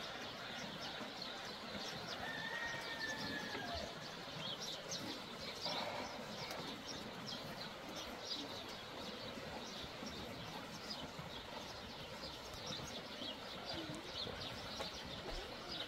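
Small birds chirping over and over in quick, short notes, with a longer falling whistled call about two and a half seconds in, over faint outdoor background noise.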